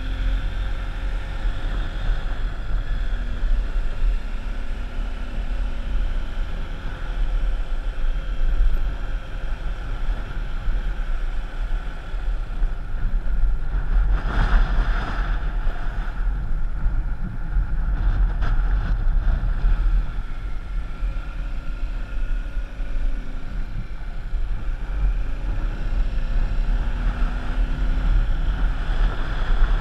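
A vehicle's engine running steadily under wind buffeting the microphone, as on a moving vehicle. A brief louder rush of noise comes about halfway through, and again a few seconds later.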